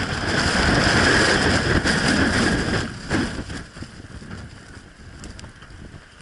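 Blizzard wind blasting over the microphone with a hiss of blowing snow: a strong gust for about three seconds, then easing off.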